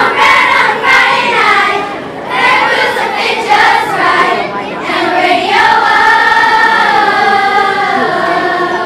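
Fourth- and fifth-grade children's choir singing a cappella, many young voices together, holding a long note through the second half.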